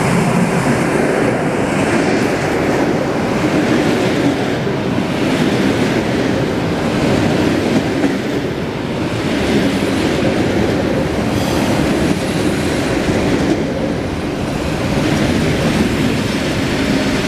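ЭП2Д electric multiple unit rolling past close by along the platform, a steady loud rumble of wheels on rail, with faint high squeals about halfway through.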